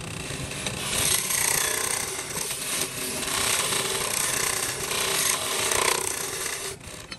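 A tool abrading wood: a steady, rasping noise that starts about a second in and cuts off suddenly near the end.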